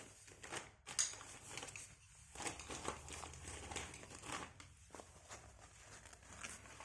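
Plastic packaging crinkling and rustling in irregular short crackles as clothing is handled and unfolded.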